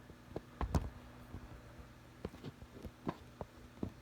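Scattered light knocks and clicks of objects being handled and moved, the loudest about a second in, over a faint steady low hum.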